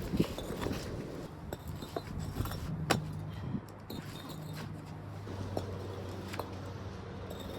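Concrete patio pavers clinking and knocking against each other and the ground as they are set in place, a scatter of sharp clicks with one sharper knock about three seconds in, over a steady low hum.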